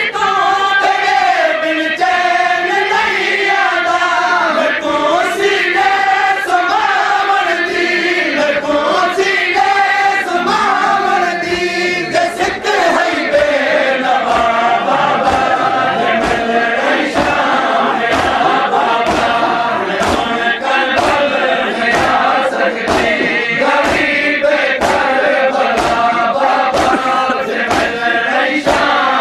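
A crowd of men chanting a Seraiki noha (mourning lament) together, with a regular beat of sharp slaps from hands striking chests (matam), plainer in the second half.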